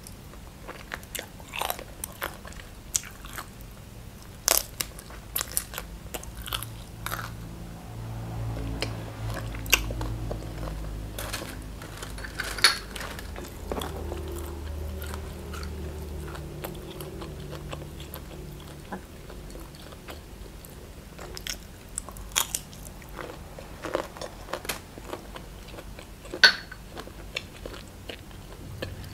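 Close-up eating sounds: biting and chewing boiled shrimp dipped in sauce and crisp fresh leaf vegetables, with sharp crunches scattered throughout. A low rumble swells and fades in the middle.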